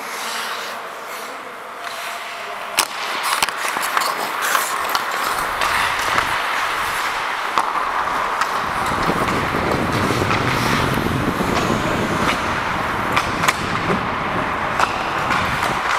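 Ice hockey play: skates scraping the ice, with many sharp clicks of sticks and puck over a steady hiss. A low rumble joins about halfway through.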